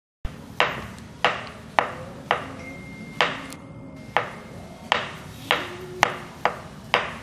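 Knife slicing through banana and knocking on a wooden cutting board: a sharp knock with each cut, about two a second, eleven in all.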